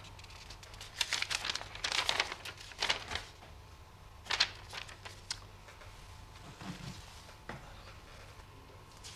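Sheets of paper rustling and crinkling as they are handled, in a cluster of bursts over the first few seconds and one sharp one a little after, then fainter rustles. A steady low hum runs underneath.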